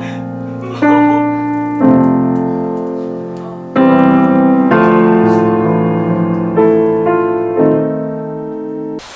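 Grand piano playing a slow hymn in full sustained chords, a new chord struck every second or two and left to ring and fade. The playing cuts off suddenly just before the end.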